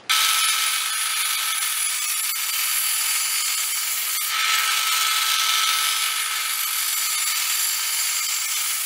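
Table saw running and cutting through a wooden board fed along the fence: a steady whine over a dense cutting noise that starts and stops abruptly.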